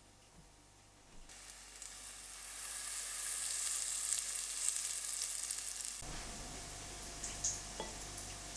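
Hot oil sizzling and crackling as battered elderflower fritters fry, starting suddenly about a second in and building. It carries on more softly over a low hum near the end.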